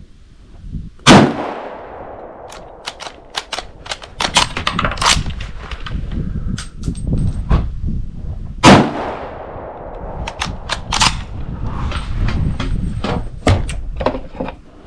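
Two rifle shots from a Yugoslavian M95M straight-pull rifle in 8mm Mauser, about seven and a half seconds apart, each ringing out after the blast. Between and after them come sharp metal clicks and clacks as the straight-pull action is worked.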